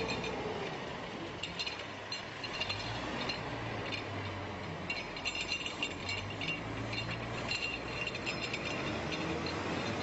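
Cable logging yarder running with a low steady hum, with bursts of rapid metallic clinking and ratcheting from its machinery.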